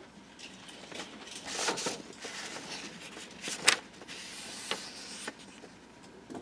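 Paper and Bible pages rustling as they are handled on a wooden pulpit, close to the microphone, with a few sharp taps. The loudest tap comes a little past halfway.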